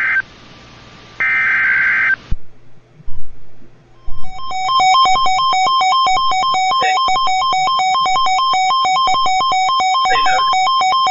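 Emergency Alert System broadcast: the last two bursts of the SAME header's digital data screech end about two seconds in, then a couple of clicks. About four seconds in the attention signal starts, a loud harsh tone switching rapidly back and forth between two pitches.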